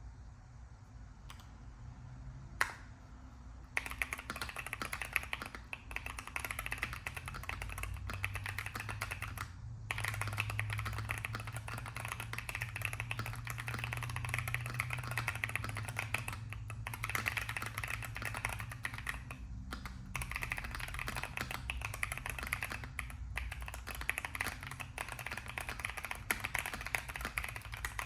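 Typing on a Keychron Q1 V2 mechanical keyboard fitted with Keychron K Pro Banana tactile switches: a couple of single key presses, then fast, continuous typing from about four seconds in, pausing briefly a few times.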